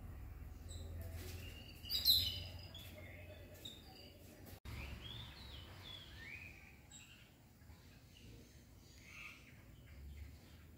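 Birds chirping and calling over a low background rumble: scattered short notes throughout, loudest about two seconds in, with a brief break in the sound a little past the middle.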